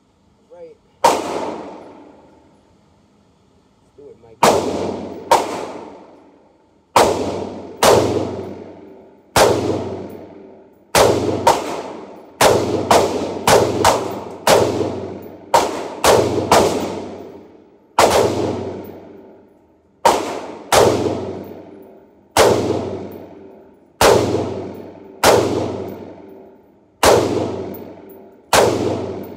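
Springfield Armory Saint Edge PDW, an AR-15-pattern pistol, firing .223 Remington in an indoor range: about two dozen single semi-automatic shots at an uneven pace, some in quick pairs. Each shot rings and echoes off the range walls.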